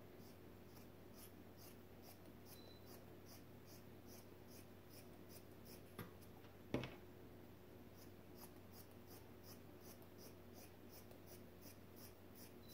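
Scissors cutting through a stretchy lycra t-shirt, quiet repeated snips of about three a second in runs with short pauses, and two sharper clicks around six and seven seconds in, over a faint steady hum.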